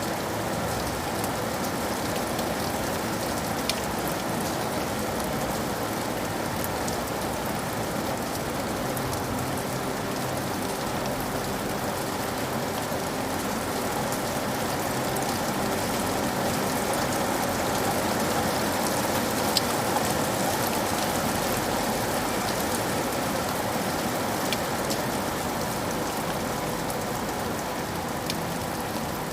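Steady rain falling, a continuous hiss with scattered sharper drop ticks, swelling slightly in the middle.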